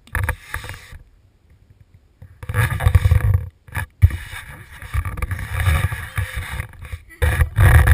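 Handling noise from a GoPro on a pole being gripped and moved: irregular bursts of deep rumbling and rubbing, with short quiet gaps between.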